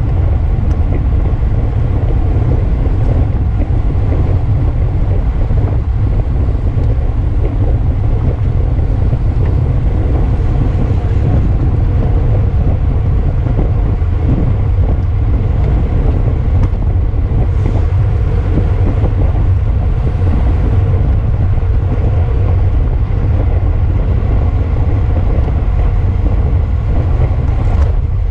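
Steady, loud wind rumble buffeting the microphone of a camera riding on a bicycle at race speed.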